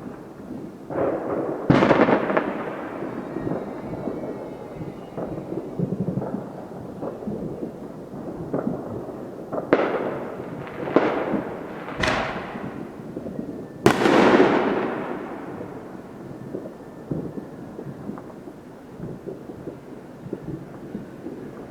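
Neighbourhood fireworks going off: a loud bang about two seconds in and a cluster of four more between about ten and fourteen seconds, each echoing and fading over a second or two, over a steady run of smaller firecracker pops.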